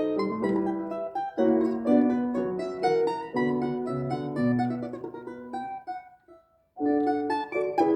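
A plucked string instrument playing a run of quick notes. The notes die away to a short pause about six seconds in, and then the playing starts again.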